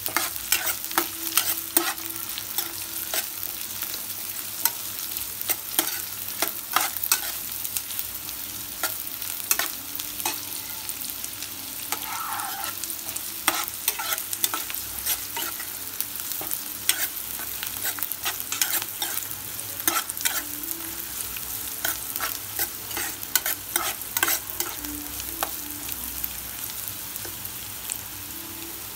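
Sliced onions and green chillies sizzling in hot oil in a nonstick pan, frying on their way to brown. A spatula stirs them, giving frequent sharp clicks and taps against the pan.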